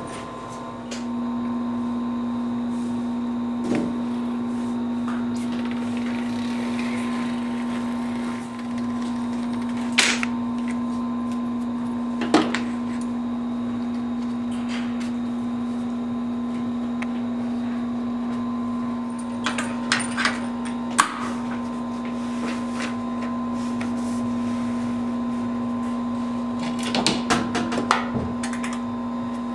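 A workshop machine hums steadily at one constant pitch, starting about a second in. Over it come scattered knocks and clicks, with small clusters near the middle and near the end, as the steel ski edges and base are handled and pressed into the metal edge-assembly jig.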